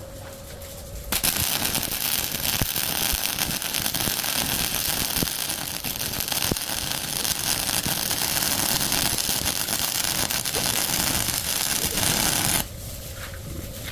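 Electric arc welding on the broken truck axle: a steady crackling hiss that starts sharply about a second in and cuts off abruptly near the end.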